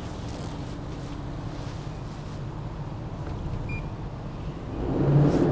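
Steady low hum of the Sunseeker 88's idling MTU diesel engines and machinery. Near the end a louder whirring swell comes in as the hydraulic thrusters push the yacht clear of the berth.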